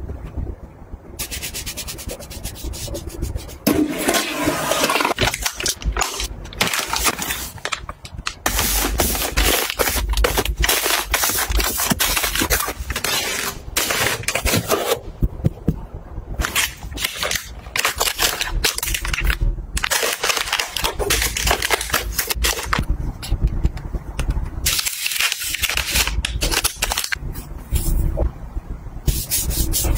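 Plastic-wrapped packs of wet wipes and disposable face towels crinkling and rustling as they are handled and stacked, with a run of sharp crackles and light taps.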